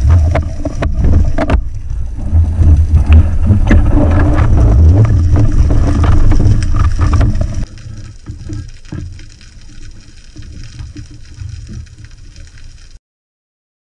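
Underwater rumble of water moving over a diving camera's housing while a spearfisher swims, with scattered clicks and knocks. About eight seconds in it drops to a much quieter hiss, then cuts off shortly before the end.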